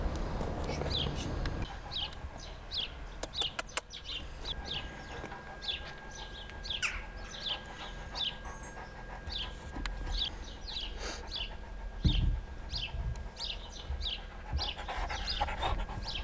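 Small birds chirping over and over in short, falling notes, two or three a second. A large dog pants in the first second or so, and a few quick clicks come about three seconds in.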